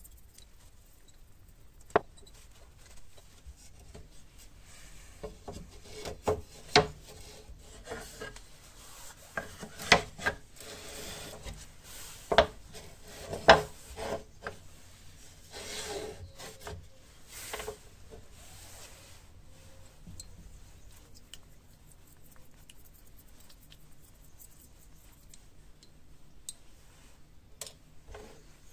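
Sandpaper rubbed by hand over a cherry board in short strokes. A sharp click comes about two seconds in, and a few knocks are mixed in with the strokes.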